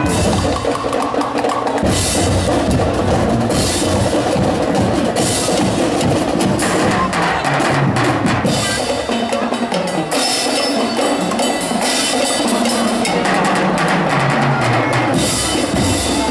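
School marching band playing, led by drums and mallet percussion on stands, with a steady driving rhythm.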